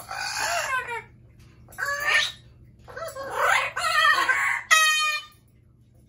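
Amazon parrots calling loudly: four calls in quick succession, several of them sliding down in pitch.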